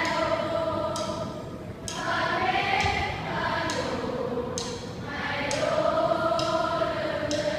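A group of voices singing together in long held notes that slide in pitch, over sharp percussive hits about once a second.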